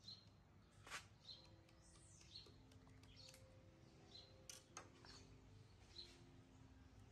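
Near silence, with faint short high chirps about once a second and a few soft clicks.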